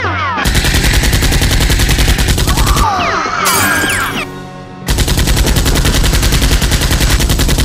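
Rapid automatic-gunfire sound effects in two long bursts: one starting about half a second in, and another starting about five seconds in. In the break between them there is a gliding tone and a short noisy burst. Music plays underneath.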